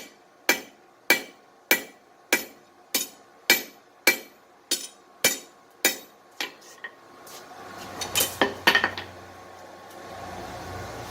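Blacksmith's hammer striking steel on an anvil, an even rhythm of ringing blows a little under two a second, stopping about six and a half seconds in. A few lighter taps and a clatter of metal follow, then a steady hum comes up.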